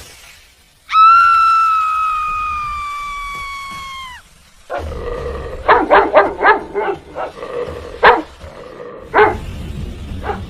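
A canine gives one long, high howl that sinks slowly in pitch and breaks off, then a string of sharp barks.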